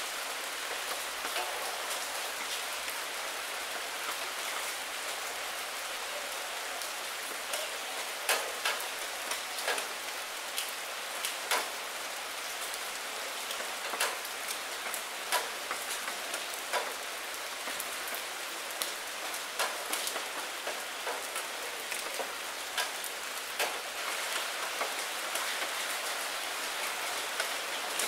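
Steady rain falling, with frequent single drops tapping sharply on window glass.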